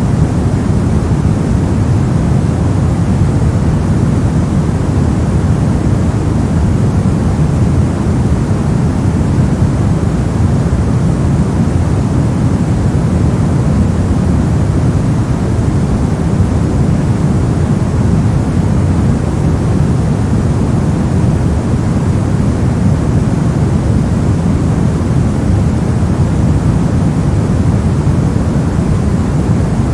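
Steady generated noise of a white-noise sleep track, loud and unchanging, with most of its weight in the low range, so it sounds like a deep, even rush rather than a bright hiss.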